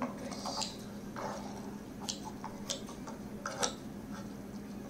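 Sparse light clicks and soft squishy sounds of metal tongs poking and spreading a fried egg's runny yolk in a frying pan, over a low steady hum.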